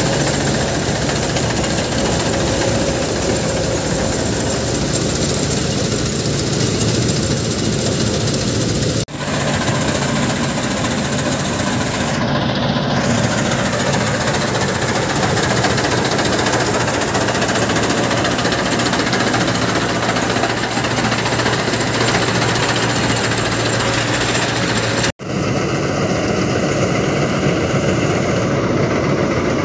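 Sonalika DI-60 RX tractor-mounted combine harvester running under load while harvesting. Its engine and threshing machinery run steadily and loudly, and the sound drops out briefly twice, about nine and twenty-five seconds in.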